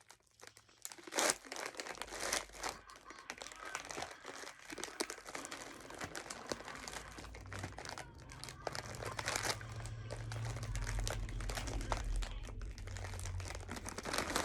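Plastic snack bags crinkling and rustling continuously as snacks are tipped from one bag into another. A low hum joins in during the second half.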